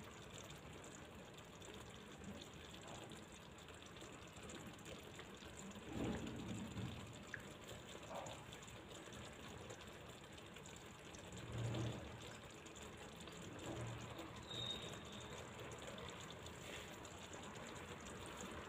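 Faint bubbling and hiss of a cream sauce simmering with chicken in a frying pan, with a couple of soft low bumps about six and twelve seconds in.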